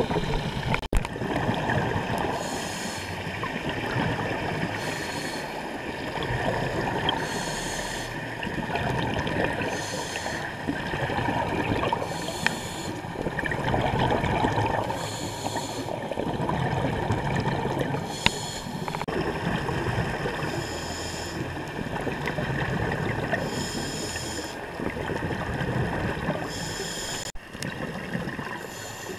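Scuba diver breathing through a regulator underwater: a short hiss recurs about every two and a half to three seconds over a steady rumble of exhaled bubbles that swells and fades.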